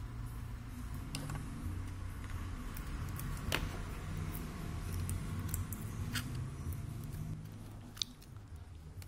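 Scattered small clicks and taps of an opened smartphone's parts and battery being handled, the sharpest click about three and a half seconds in, over a steady low hum.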